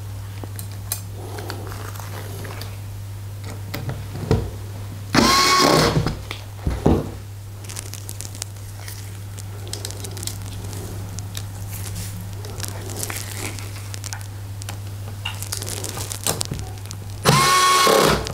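Bosch cordless electric screwdriver driving small screws into a resin vat frame, in two short runs of under a second each: about five seconds in and near the end. Between them come faint rustles and small clicks of parts and screws being handled on paper towel, over a steady low hum.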